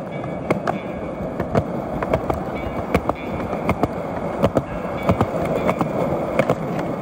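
Skateboard wheels rolling on a concrete path: a steady gritty rumble, broken by sharp clacks now and then as the wheels cross the joints and cracks in the slabs.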